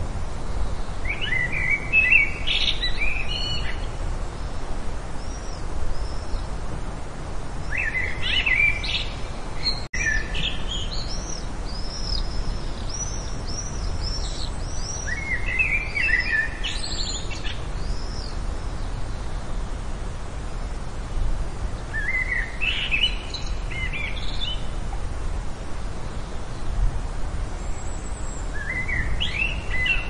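Songbirds singing: short warbled phrases come about every seven seconds, and thin high notes from another bird run through the middle stretch. A steady low background noise lies under the song.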